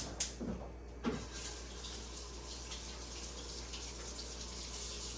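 Kitchen tap running into a sink, turned on about a second in after a couple of clicks and a knock, and shut off at the very end.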